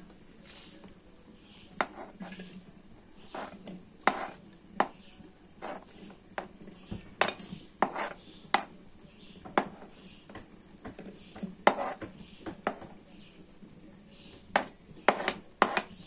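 Metal spoon scraping and clinking against a plastic cutting board and an aluminium saucepan as diced sausage is scooped into the pan: a run of short, irregular clinks and scrapes.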